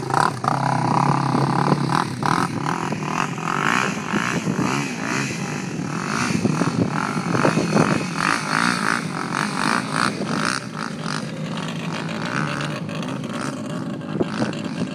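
Sport ATV (quad bike) engine revving up and down as it pulls away and rides off across sand, growing fainter as it gets farther away.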